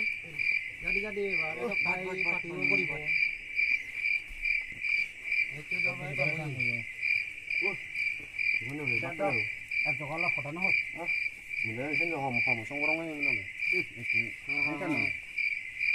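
Crickets chirping steadily: a high, even pulsing trill about three times a second, with men talking over it.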